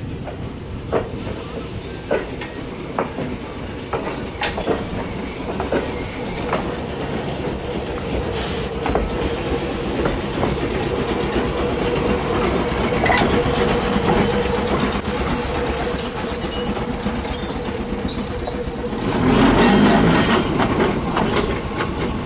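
Electric trolley car TMER&L 846 running along the track, its wheels clicking over the rails. A steady tone holds through the middle, and the sound is loudest near the end.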